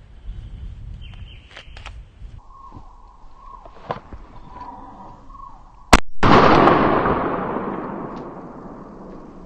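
A single handgun shot about six seconds in, sharp and loud, followed by a long hissing tail that fades away over about three seconds. Before it, a few small clicks and wind on the microphone.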